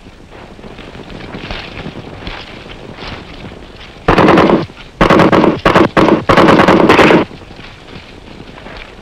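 Automatic rifle fire from an M16-type rifle: a short burst about four seconds in, then a run of several more bursts over about two seconds, each a rapid string of shots.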